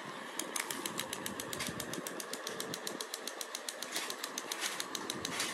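Battery-operated crawling Spider-Man toy with a rifle: its small motor and plastic gearbox run with a rapid, even clicking, about eight clicks a second, as the limbs push it along a tile floor.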